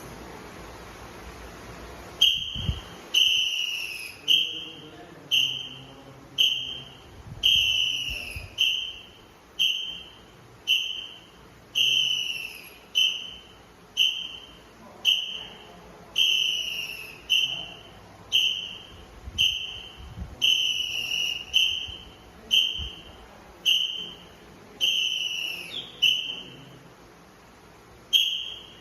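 Drill whistle blown in short, evenly timed blasts, a little faster than one a second, beating the count for a calisthenics exercise. The blasts begin about two seconds in, and some are held a little longer than others.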